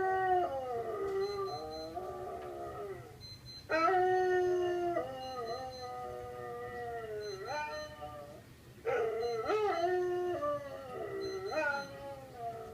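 Vizsla howling: long, wavering, drawn-out howls. One is already under way at the start, and new howls begin about three and a half seconds in and about nine seconds in.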